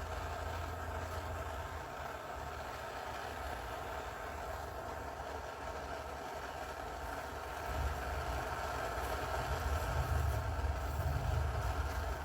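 Gas torch flame burning steadily while heating a radiator joint for soldering, a continuous rushing roar with a low rumble that grows stronger about eight seconds in.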